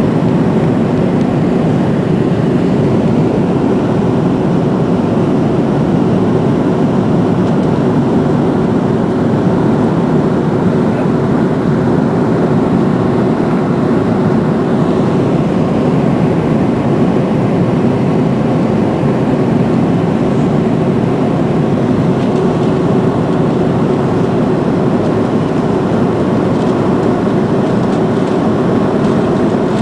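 Steady airliner cabin noise from a window seat over the wing of an Airbus A330-223 on approach: the drone of its Pratt & Whitney PW4000 turbofan engines blended with the rush of air past the fuselage.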